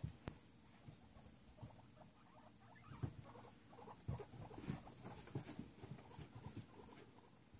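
Pet guinea pigs moving about in hay, with scattered soft rustles and faint short squeaks at irregular moments.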